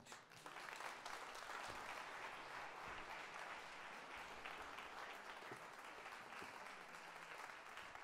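An audience applauding. The clapping swells within the first second and then holds steady.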